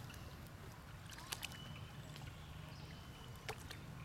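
Light splashing and dripping of pond water as a long-tailed macaque paws at it by hand, with a few sharp little clicks (two about a second in, one near the end) over a low rumble.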